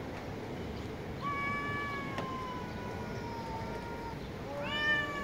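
Street cats yowling at each other in a face-off: one long drawn-out yowl that slowly sinks in pitch, then a shorter, louder yowl that rises near the end.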